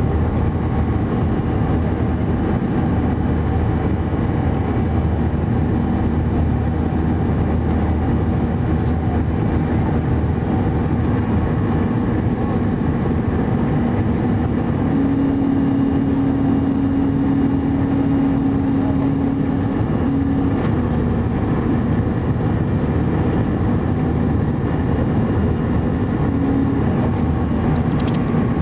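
Cabin noise of an Airbus A320-212's CFM56 jet engines climbing after takeoff, heard inside the cabin from over the wing: a loud, steady rush of engine and air noise with a low rumble. About halfway through a steady droning tone comes in, dropping out and returning a few times.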